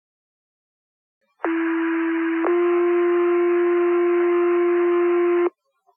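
Two-tone sequential fire pager alert tones over a dispatch radio channel, with radio hiss under them: one steady tone for about a second, then a second tone held for about three seconds that cuts off sharply. The tones set off the volunteer firefighters' pagers ahead of a voice dispatch.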